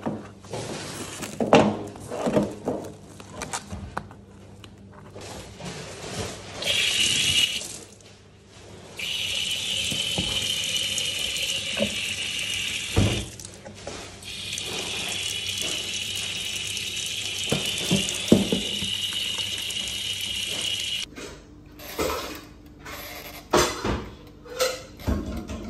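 Kitchen tap running into a stainless-steel sink: a short burst about seven seconds in, then a steady stream for about twelve seconds that stops suddenly. Before it, plastic packaging rustles and clicks as it is handled; near the end, a few clicks and knocks come as a pressure cooker's timer dial is turned.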